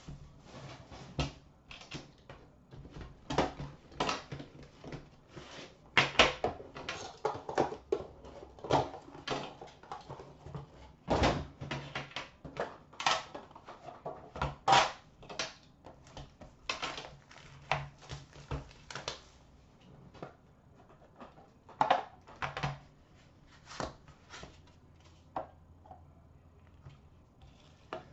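Hockey card box and its plastic wrap being handled and opened: irregular rustles, taps and clicks of cardboard and plastic, thinning out near the end, over a faint steady low hum.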